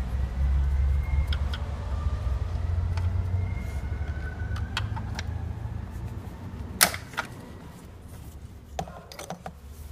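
Scattered light plastic clicks as a screwdriver pries a wiring-harness clip off a car's plastic air-filter housing, with one sharp louder click about seven seconds in. A low background rumble fades out over the first seven seconds or so.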